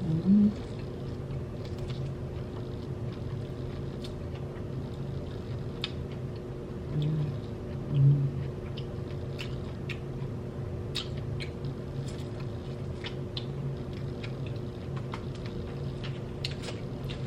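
Eating sounds: scattered wet mouth clicks and smacks from chewing, with three short low vocal sounds, the loudest about eight seconds in, over a steady low hum.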